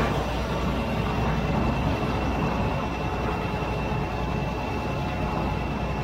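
John Deere combine running and harvesting soybeans with its draper header: a steady mechanical drone of engine and threshing machinery, with a faint high whine throughout.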